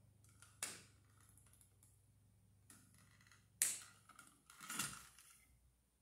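Faint clicks and scraping as a wire nut is twisted off an aluminum-to-copper splice, with a sharp click about half a second in, another about three and a half seconds in, and a longer scrape of about a second near the end.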